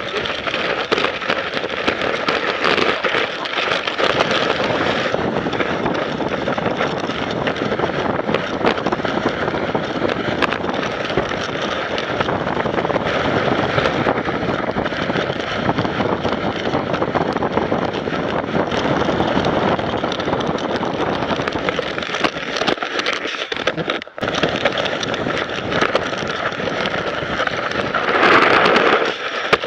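Wooden sled's runners scraping over packed snow at speed, with wind rushing on the sled-mounted microphone. Near the end the scraping swells louder as the sled slows.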